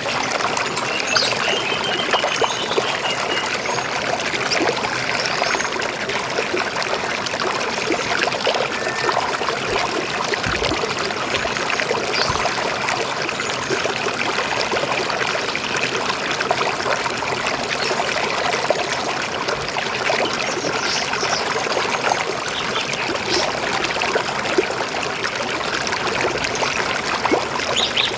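River water flowing steadily, with a few brief, faint bird chirps near the start and near the end.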